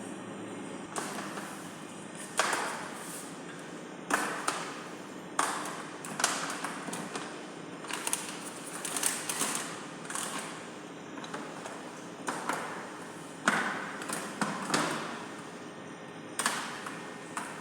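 A series of about a dozen sharp knocks and clinks, each with a short ring, spaced a second or so apart: objects being handled and set down.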